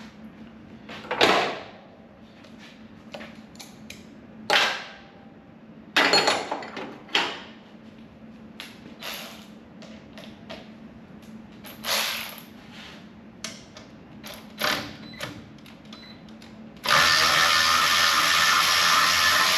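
Metal tools clanking and knocking a dozen or so times while bolts are worked loose on the truck's alternator. Near the end a power tool, such as a drill or electric ratchet, runs steadily for about three seconds.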